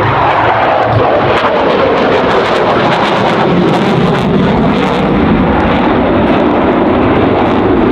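F-22 Raptor's twin turbofan jet engines passing close by, loud, with the pitch falling steadily over the first few seconds as the jet goes past, then a steady engine noise.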